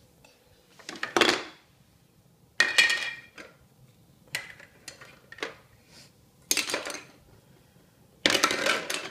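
Plastic toy food and play-kitchen pieces clattering and knocking together in about six short bursts, with quiet gaps between them.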